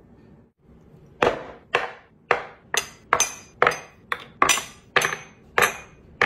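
Small glass bowls of ingredients set down one after another on a wooden countertop: about eleven sharp clinking knocks, roughly two a second, starting about a second in, some with a brief glassy ring.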